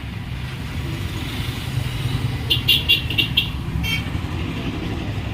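Steady road-traffic rumble, with a quick run of about six short vehicle-horn toots some two and a half seconds in and one more toot near four seconds.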